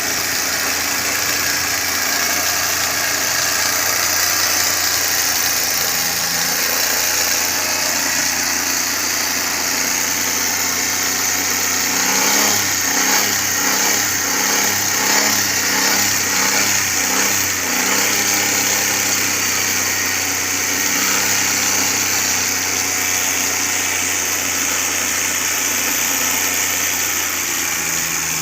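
Suzuki Cultus three-cylinder carburetted engine idling steadily on a newly fitted ignition coil, which is being tested for the misfire. About twelve seconds in, a regular pulsing at roughly two beats a second runs for about six seconds.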